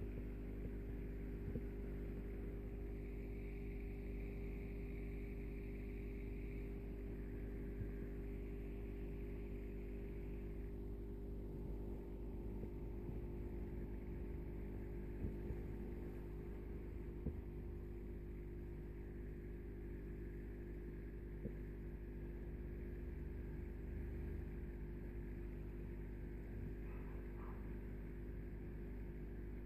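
Steady low electrical hum of aquarium equipment, a filter or pump motor running, with a few faint ticks.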